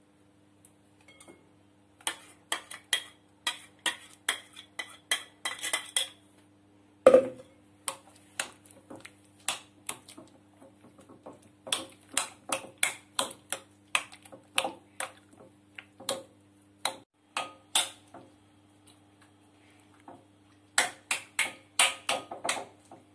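Irregular clicks and knocks of a stainless steel mixer-grinder jar and a glass mixing bowl as green marinade is emptied out of the jar and worked into the chicken by hand. The loudest is a single sharp knock about seven seconds in.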